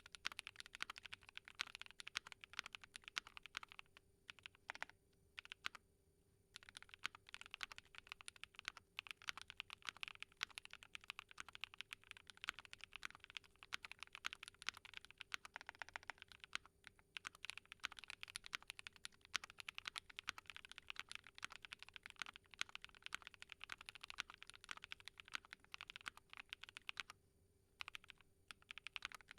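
Fast typing on a Keychron Q12 mechanical keyboard modded with a POM plate, PE and Poron foam, SOTC linear switches and doubleshot ABS Cherry-profile keycaps: a steady stream of keystrokes, pausing briefly about four seconds in and again near the end.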